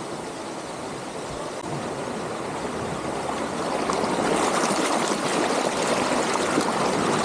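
Rushing stream water, a steady wash of noise that grows louder over the first four seconds or so and then holds level.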